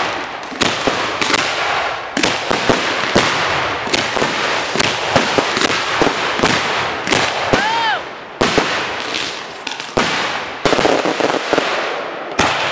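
Fireworks display: a dense barrage of sharp bangs and crackling shell bursts in quick succession, easing briefly about two-thirds of the way through, with one short whistle rising and falling just before that lull.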